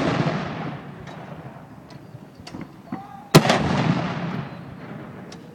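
Ceremonial saluting cannon firing one round about three seconds in: a sharp bang followed by a long rolling echo that dies away over a second and a half. At the start, the echo of the previous round is still fading.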